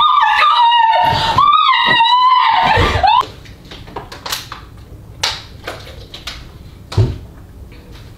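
A woman screams in fright: one long, high-pitched scream that breaks off suddenly after about three seconds. A few light knocks follow, and there is a dull thump about seven seconds in.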